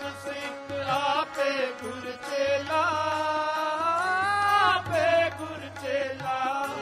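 Sikh shabad kirtan: a male voice holds a long, wavering melodic line without clear words, over harmonium, with tabla strokes keeping time.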